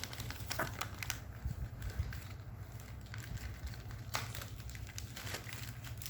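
Plastic packaging crinkling and crackling as it is handled, in scattered short clicks and rustles.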